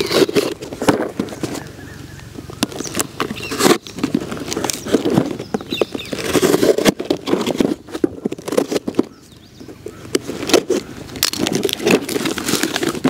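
A knife blade slicing through packing tape and cardboard on a parcel, in short irregular scrapes, clicks and crackles; near the end the box flaps are pulled open.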